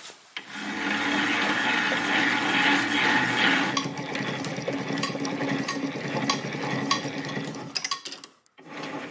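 Vevor 7x16 mini metal lathe running on its direct-drive spindle motor, the chuck spinning a steel hex nut and the change-gear train meshing: a steady whirr, loudest in the first few seconds, then carrying on with light ticking before it stops about eight seconds in.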